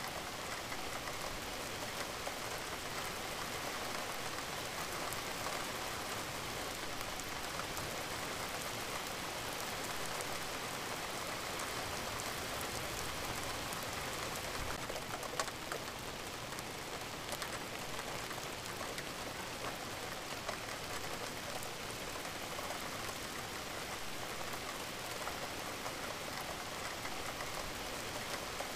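Recorded rain falling steadily: an even hiss with a fine patter of drops, laid in as a background rain-sounds track.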